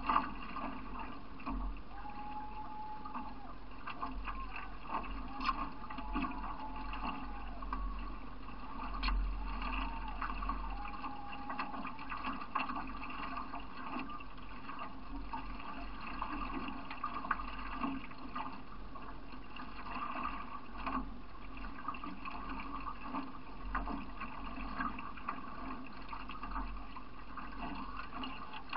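River water washing and lapping around a canoe's hull, with small splashes and drips from paddle strokes. A low rumble comes and goes underneath, and a few faint short whistle-like tones appear in the first dozen seconds.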